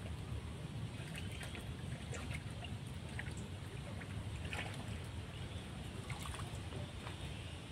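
Wind rumbling on the microphone, with scattered short splashes and clicks as a hooked fish is reeled in through the water.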